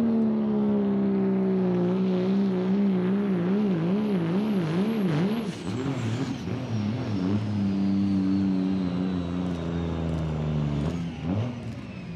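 Dodge Ram pickup's Cummins turbo-diesel pulling a sled at full throttle. The engine holds a high, loud note that wavers up and down about twice a second through the middle of the pull, with a thin high whistle over it. Near the end the engine drops off and the pull ends.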